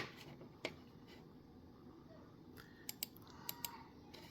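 Computer mouse clicking: a sharp click at the start, another just over half a second later, then four lighter clicks in two quick pairs about three seconds in.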